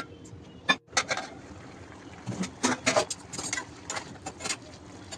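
Irregular short clicks and knocks of kitchen utensils, with a brief drop nearly to silence just under a second in.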